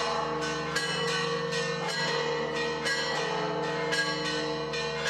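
Church bells ringing a peal: a steady run of strikes, about two a second, each one ringing on under the next.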